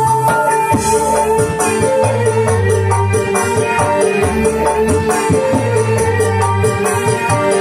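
Percussion-driven band music played loud through a PA sound system, with a quick steady beat of hand drums and shaker over a moving bass line and a long held high note.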